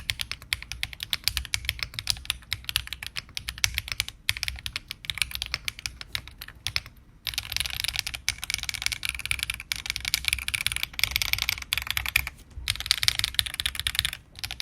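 Typing on a Weikav Nut65 mechanical keyboard built with a 1.6 mm PCB and no foam, giving a clacky sound. Keystrokes click in quick runs with short pauses, speeding into fast continuous typing about seven seconds in.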